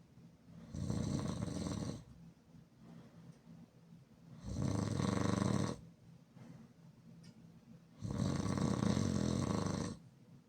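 A person snoring loudly with mouth open: three long snores about three and a half seconds apart, each lasting a second or two, with quiet breathing between.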